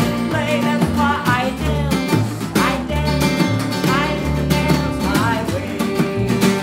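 Small acoustic band playing live: a woman singing over strummed acoustic guitar, a second guitar and upright bass, with a drum keeping a steady beat.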